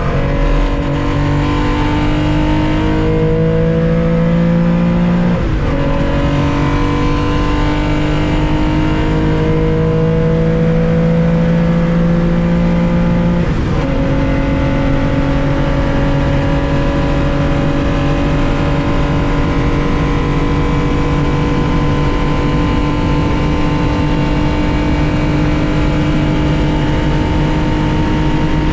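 Air-cooled flat-six of a 1965 Porsche 911 2.0 at full throttle, heard from inside the car. It climbs through the revs and shifts up twice, about five and fourteen seconds in. Then it holds a long, slowly rising note in the higher gear.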